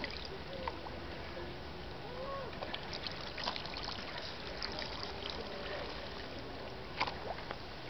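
Russian terrier puppy lapping water from a lake, with small splashes, drips and quick ticks, loudest around the middle and again near the end, over a steady wash of water noise.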